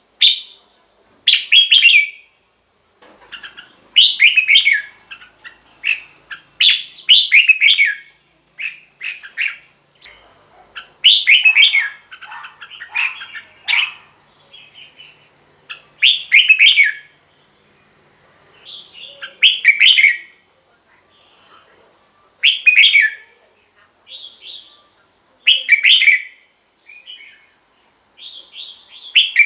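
Red-whiskered bulbul singing short, loud warbled phrases, one every two to three seconds, with brief pauses between.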